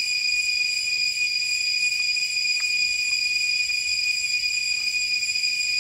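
Steady, high-pitched insect drone, unbroken.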